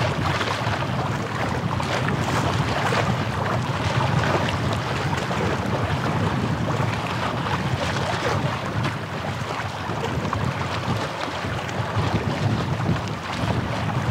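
Steady wind buffeting the microphone over the wash of waves on a bay shore.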